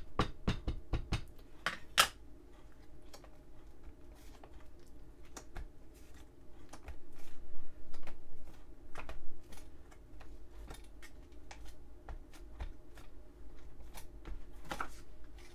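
Small taps and clicks of a Distress Oxide ink pad and a small acrylic gel printing plate handled on a glass craft mat and journal page. There is a quick run of taps in the first two seconds, then scattered clicks with a busier patch around the middle as the plate is pressed, rubbed and lifted off the paper.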